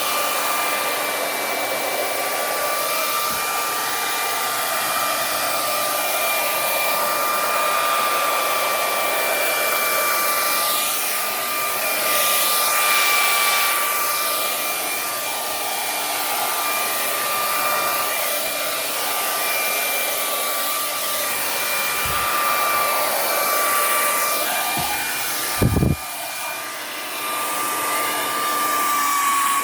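Handleless hair dryer running: a steady rush of blown air with a high whine, its sound shifting slowly as it is moved about. A brief thump comes near the end.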